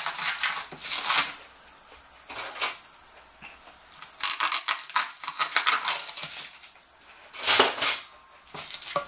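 Clear plastic wrap crinkling and tearing as it is cut with a knife and peeled off a ceramic cat drinking fountain, in several loud bursts with short pauses between.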